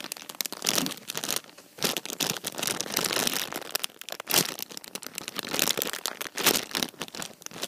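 Close-up crinkling and rustling of plastic packaging as a small squishy mascot toy is handled and squeezed, with irregular crackles and clicks.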